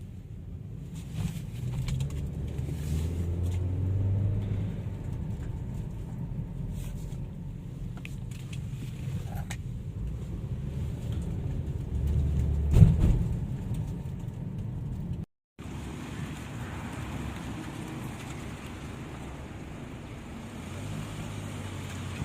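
Chevrolet Malibu driven over a rough road, with a steady low road and tyre rumble and scattered light knocks, and one louder thump about 13 seconds in. The sound cuts out briefly about 15 seconds in. There is no suspension clunk now that the worn front-left lower control arm has been replaced.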